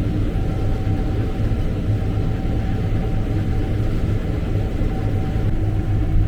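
Combine harvester running steadily during soybean harvest: a continuous low engine and machinery drone.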